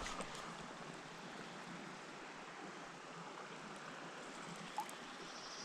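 Creek water running steadily over a shallow bed, a soft even rush. A high thin buzz starts near the end.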